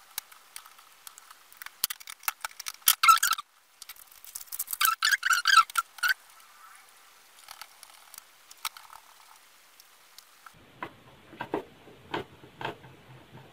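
Clicks, scrapes and light rattling of fingers and a small screwdriver working on a laptop's metal chassis plate as screws are driven in. Two denser bursts of clatter come about 3 and 5 seconds in, and a few separate ticks come near the end.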